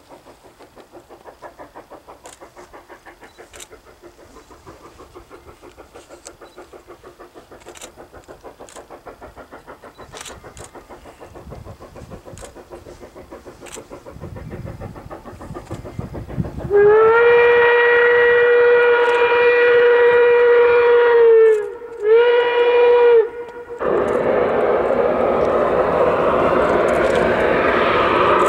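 Steam locomotive working upgrade with steady rhythmic exhaust beats, then a long blast and a short blast on its steam whistle. About three quarters of the way in, a loud steady hiss starts: a boiler blowdown venting steam to the side.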